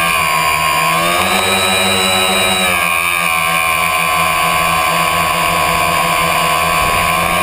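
A tricopter's three electric motors and propellers whine steadily in flight, heard through the onboard camera. Their pitch dips and climbs a little about a second in and again near three seconds, as the throttle shifts.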